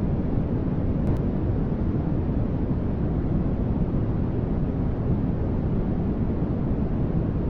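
Continuous generated static noise for sleep, steady and unchanging, a deep, rumbly hiss with most of its weight in the low range and little at the top.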